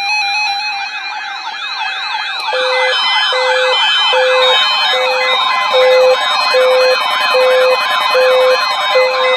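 Several weather radio receivers sounding their alert alarms at once for a tornado watch. Fast siren-like warbling tones overlap throughout. A couple of seconds in, a short beep starts repeating about three times every two seconds, and a steady high tone joins about halfway through.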